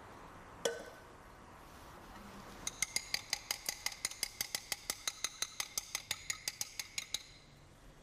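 Small stainless steel laboratory sieve clinking: one sharp clink under a second in, then about four and a half seconds of rapid, even metallic clinks, about eight a second, each with a bright ring, as the sieve of acid-bath organic residue is worked over the sink.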